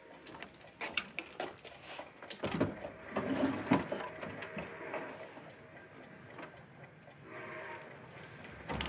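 Scattered light clicks and knocks as a sewing machine and folded cloth are handled and set out on a table, with a louder knock near the end.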